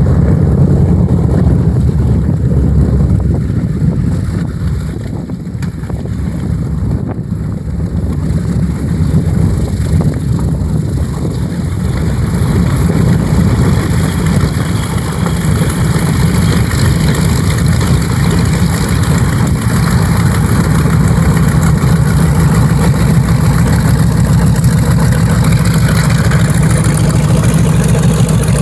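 The two Wright R-2600 radial engines of a B-25 Mitchell bomber running as it taxis, a loud, low, steady drone. It eases off briefly about five seconds in, then builds and stays louder as the aircraft rolls close by.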